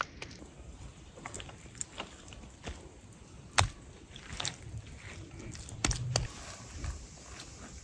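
Hands slapping and pressing wet clay onto a lump, coating a chicken in mud: irregular wet slaps and squelches, the sharpest about three and a half seconds in and two more close together around six seconds.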